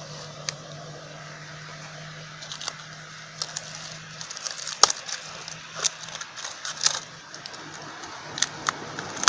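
Scattered small clicks and crackles of objects being handled, coming thick from about two and a half seconds in, over a steady low hum.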